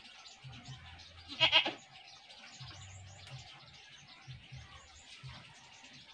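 A single short, pitched animal-like call about a second and a half in, over faint low background noise.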